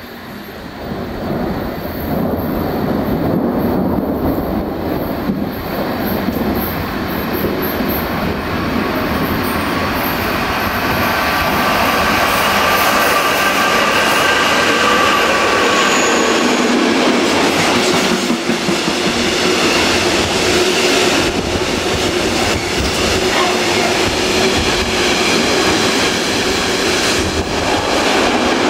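A DB class 187 electric locomotive hauling a freight train of tank and open wagons, growing louder over the first few seconds as it approaches and then staying loud as the wagons pass close. The wheels clatter over the rails, with a high squeal for several seconds midway.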